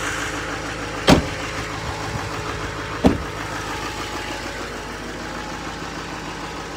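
Duramax 6.6-litre V8 turbodiesel of a 2011 Chevrolet Silverado 2500HD idling steadily. Two sharp knocks cut in, about a second and about three seconds in.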